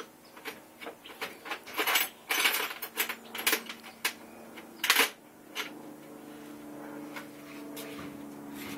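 Small metal hand tools, socket-set sockets and extensions, clinking and rattling as they are rummaged through, in a run of sharp clicks and short clatters. A low steady hum sets in about halfway through.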